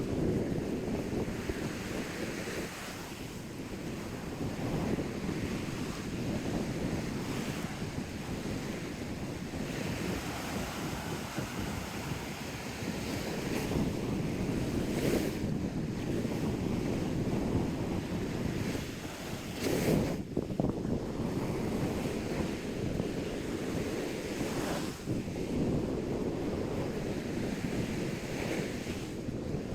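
Ocean surf washing onto a beach, swelling and fading every few seconds, with wind buffeting the microphone and a few brief louder gusts.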